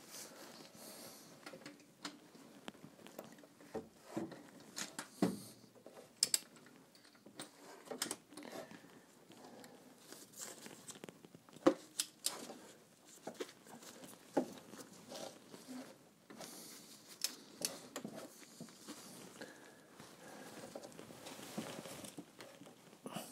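Faint, scattered metal clicks, taps and rustles of a socket and extension bar being fitted onto a banjo bolt and handled, with a few sharper knocks.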